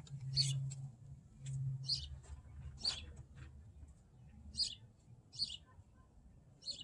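A bird chirping: short, high chirps repeated every second or so, with a faint low hum twice in the first two seconds.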